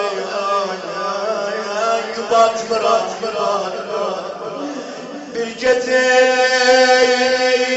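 A man chanting a mournful religious lament, his voice sliding and ornamenting the melody. About five and a half seconds in, a long steady held note begins and carries on.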